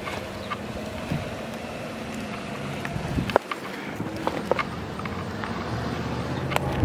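Footsteps on gravel ballast and pavement, sounding as scattered short crunches, over the steady noise of road traffic. A vehicle engine's low steady hum comes in about six seconds in.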